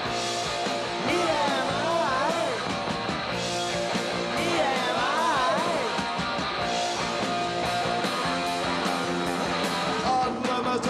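Punk rock band playing live at full volume: distorted electric guitar, bass guitar and drums.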